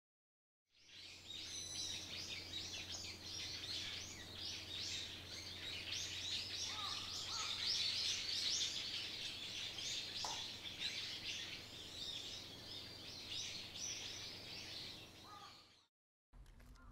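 Many birds chirping and chattering at once in a dense, continuous chorus, with a few lower calls among them and a low steady hum beneath. It all cuts off about a second before the end.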